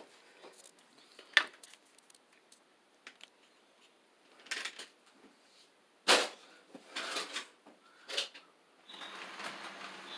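A few sharp knocks and clatters, then near the end the steady running noise of an HO-scale model train starting up on the layout track.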